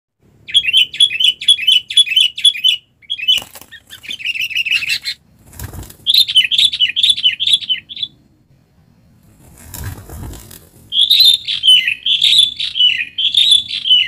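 Sooty-headed bulbul giving rapid, repeated chattering calls, about four notes a second, in four bouts, with wing flapping as a bird struggles on a bird-trapping perch.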